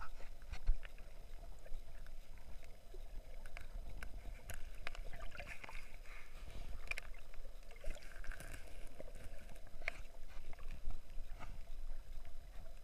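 Shallow sea water surging and churning under breaking waves, heard underwater: a muffled low rumble with scattered sharp clicks and crackles and swells of bubbly hiss.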